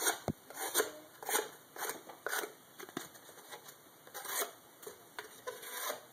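A sharp knife blade slicing repeatedly through the edge of a strip of cardboard: a quick series of short scraping cuts, about two a second, with a single click near the start. Thin curls are being shaved off as an edge-sharpness test.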